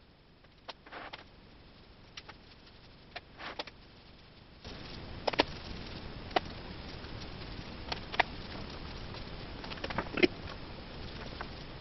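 A paintbrush laying latex primer onto a wooden 2x4 table frame: soft brushing scuffs with a few sharp taps and knocks on the wood and the can. About five seconds in, a steady hiss comes on underneath, and a louder knock lands near the end.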